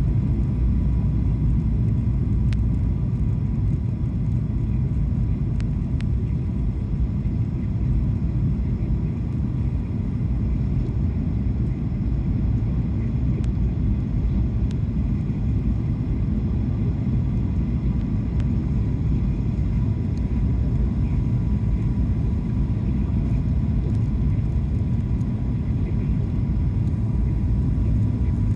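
Steady low rumble of the engines and airflow inside a Boeing 737-800's cabin during the landing approach, with a faint steady whine above it.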